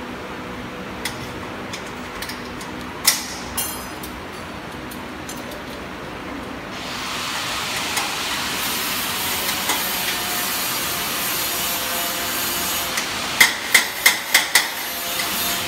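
A wrench clinking against the bolts and stainless steel frame of a conveyor as it is assembled: a few scattered knocks, then a quick run of five or six ringing metallic clinks near the end. A steady hiss comes in about halfway through.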